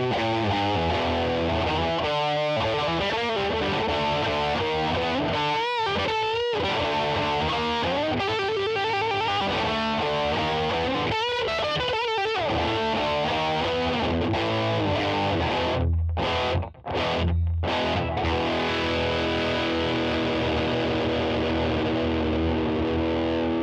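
Distorted electric guitar on an Allen Eden Sepulveda Strat-style guitar freshly fitted with a new humbucker pickup, played as a test after the swap. It plays sustained lead notes with wide vibrato and bends, stops abruptly a few times about two-thirds of the way through, then lets a chord ring near the end.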